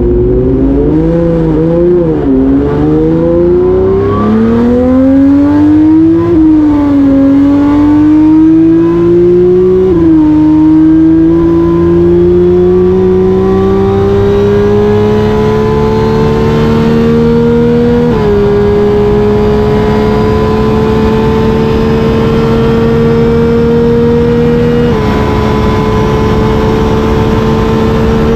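Homemade 5-litre V12 engine heard from inside the cockpit of a land speed car on a full-throttle run from a near standstill to over 200 mph. The engine note wavers during the launch in the first few seconds, then climbs steadily. Its pitch drops sharply at each upshift, about 6, 10, 18 and 25 seconds in, before rising again.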